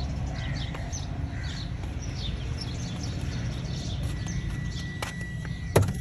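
Small birds chirping over and over over a steady low background noise, with one sharp knock near the end.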